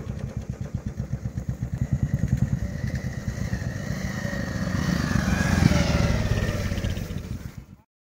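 Motorcycle engine running as the bike comes up a dirt track toward the listener, growing louder as it approaches. The sound cuts off suddenly near the end.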